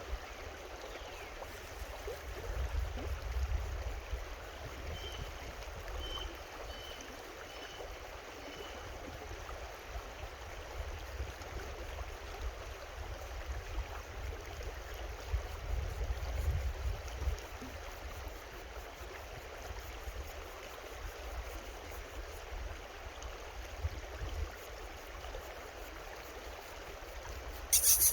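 Creek water running steadily over rocks, with a low uneven rumble underneath. A few faint high chirps come about five to nine seconds in, and there is a brief loud noise near the end.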